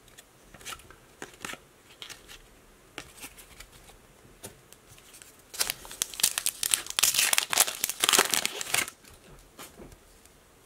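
Trading cards slid and flicked through by hand, making light scattered clicks; about five and a half seconds in, a foil hockey card pack is torn open and its wrapper crinkles loudly for about three seconds.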